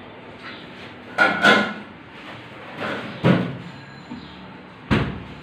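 A few sharp knocks and bumps: two close together about a second in, another near three seconds, and a single one near the end.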